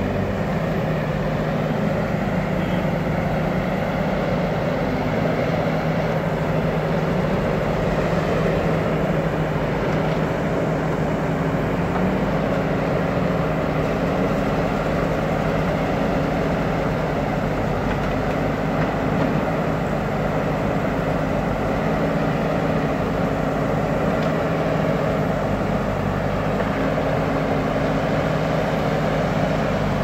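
Diesel engines of JCB backhoe loaders running steadily as a front loader bucket pushes soil, a low even engine drone.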